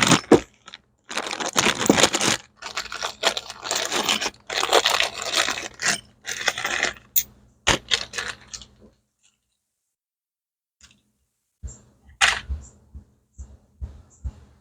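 Gritty scraping strokes of a motorcycle cylinder head being worked against an abrasive, repeated about every second, stopping after about nine seconds; a few light clicks follow near the end.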